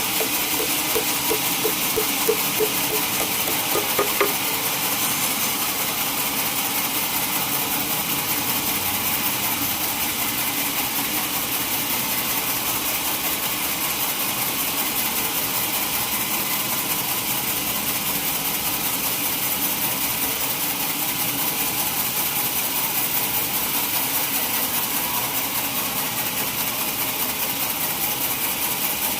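Sawmill machinery running steadily, with a few light knocks in the first four seconds.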